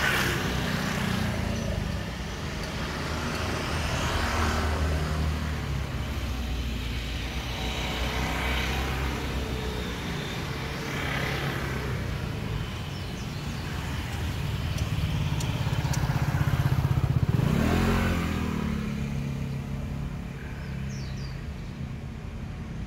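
Motor vehicle engines running close by, several passing in swells, with one revving up in a rising pitch about 17 seconds in.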